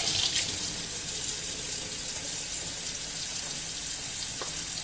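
Water tap running steadily into a sink, an even hiss of flowing water.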